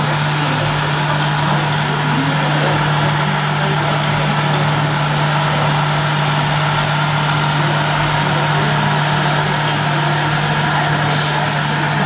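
Steady diesel-truck engine sound from the scale RC Scania truck's sound unit, a low even hum that keeps one pitch throughout, over an even background of hall noise.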